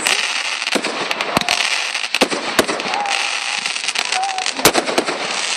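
Fireworks display: a rapid, irregular string of sharp bangs and pops over a continuous crackling hiss.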